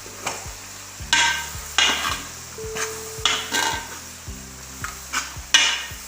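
A metal spatula stirring and scraping a pan of onions and spices frying in oil, with a steady sizzle. The scrapes come irregularly, about once or twice a second.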